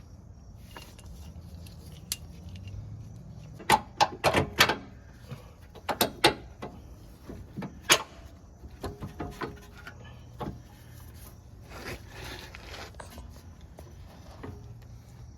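Metal clinks and knocks from tools and suspension hardware while a new front lower control arm is worked into place on a Dodge Charger. There is a quick run of about four sharp knocks some four seconds in, two more around six seconds, a loud single knock near eight seconds, then lighter scattered clicks.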